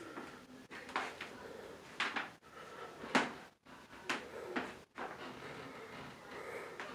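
A series of sharp knocks, about one a second.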